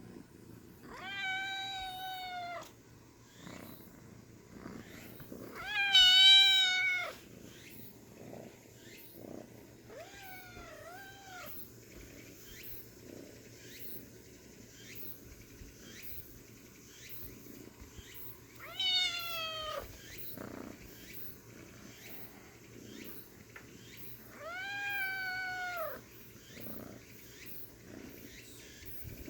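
A kitten meowing five times, high pitched calls about a second long spaced several seconds apart, the third broken into two parts and the second the loudest, over a soft low rumble.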